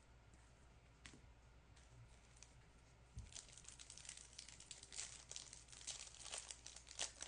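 A trading card pack's wrapper being torn open and crinkled, a dense crackling that starts about three seconds in. Before that, a few faint clicks.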